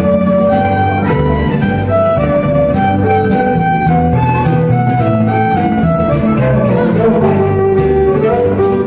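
Live ceilidh band playing a dance tune for country dancing: a melody line moving over a steady bass.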